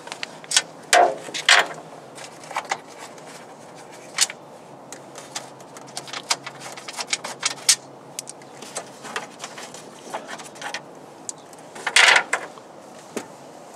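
Plastic frunk trim and tray parts of a Tesla Model S being worked loose and handled: scattered clicks, knocks and rattles of plastic and fasteners, with a louder scrape about twelve seconds in.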